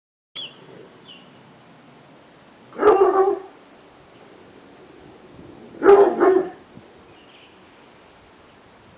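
Otterhound barking: two loud barks about three seconds apart, the second a quick double bark.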